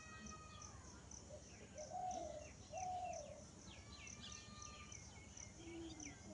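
Birds chirping and calling, with two louder short arching calls about two and three seconds in, over a steady high insect-like pulsing.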